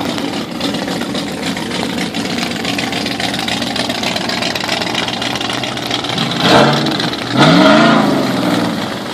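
Lifted Toyota mud-bog pickup's engine idling steadily, then revved twice near the end: a short blip, then a longer rev that rises and falls in pitch.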